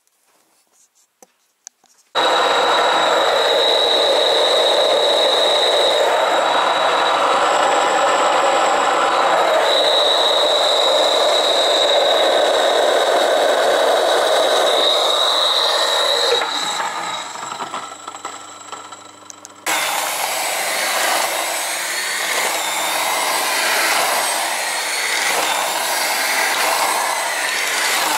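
Electric hand mixer (Siemens, 450 W) starting about two seconds in and running with a steady high whine as its dough hooks knead stiff sourdough dough. Later it drops away for a few seconds, then runs on with a rougher, uneven sound.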